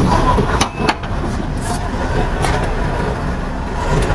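Heavy road-construction machinery running steadily with a low engine rumble, with a few short metallic knocks about a second in.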